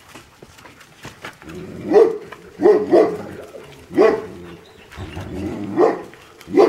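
Dogs barking: about six short, sharp barks at irregular intervals, starting about two seconds in, from a pack of excited dogs jumping up at a person.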